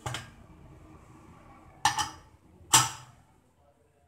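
Prestige pressure cooker's metal lid and whistle weight clanking as the cooker is handled and the weight is set on the vent: three sharp metallic knocks, the last two close together.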